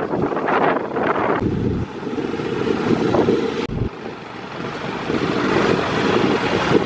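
Wind rushing over the microphone with the noise of a moving vehicle. The sound changes abruptly about one and a half seconds in and again near four seconds, as if between separate clips.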